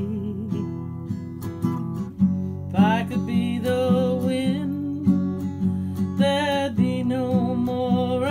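Instrumental break in a slow song: strummed acoustic guitar, with a held melody line that wavers in pitch coming in about three seconds in.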